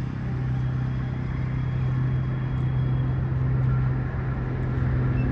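A steady low mechanical hum over outdoor background noise.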